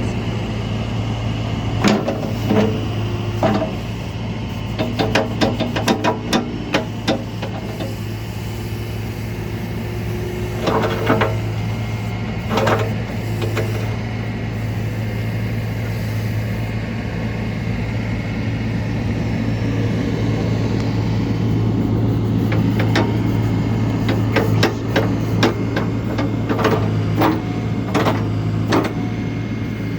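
John Deere 310SK backhoe loader's diesel engine running steadily, with repeated sharp metallic clanks and knocks in several groups from the backhoe's steel pins and linkage.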